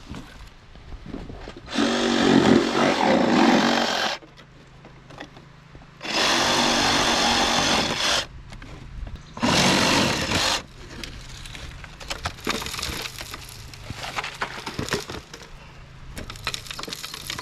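A power saw cutting in three bursts, about two seconds, two seconds and one second long, with scattered ticks and a low steady hum between the cuts.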